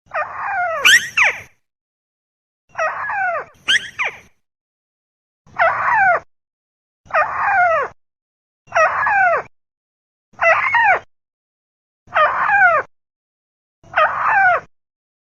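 Looped recording of a crake's (burung tikusan) call played as a bird lure: eight calls of falling, whistled-and-wailing notes, about one every one and a half seconds, the first two longer and doubled, with dead silence between them.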